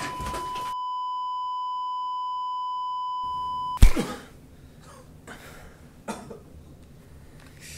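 A steady, high electronic beep tone, held alone for several seconds, then cut off abruptly by a sharp, loud hit. A few faint knocks and scuffs follow.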